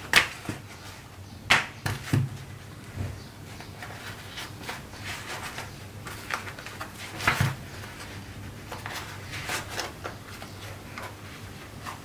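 Handling noise as gloved hands lay a heated, leather-lined Kydex sheet over a Glock 19 mold on a foam-lined wooden press and move them about: a few sharp knocks and clatters, the loudest near the start, about one and a half seconds in and about seven seconds in, with lighter clicks between them over a low steady hum.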